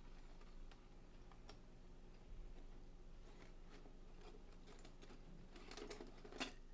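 Near silence, with faint scattered clicks and light clinks from bicycle cassette parts handled in a parts washer. A few slightly louder ones come near the end.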